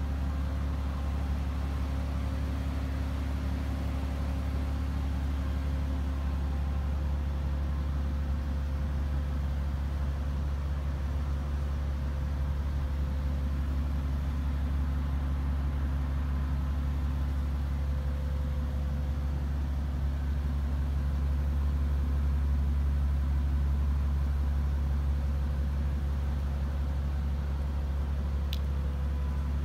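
Mercedes-AMG G65's twin-turbo V12 idling steadily, its low, even exhaust note getting slightly louder about two-thirds of the way through. A small click sounds near the end.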